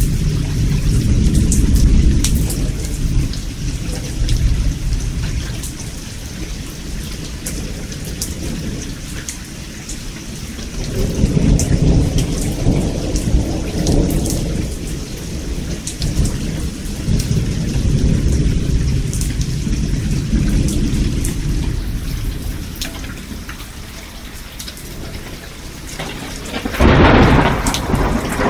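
Rolling thunder over steady rain. Long deep rumbles come at the start and twice more through the middle, then a sudden, sharper thunderclap near the end.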